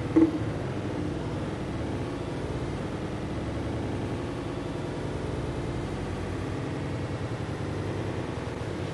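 Steady machine hum of café equipment, with one dull knock about a quarter second in as a paper cup of coffee is set down on the counter.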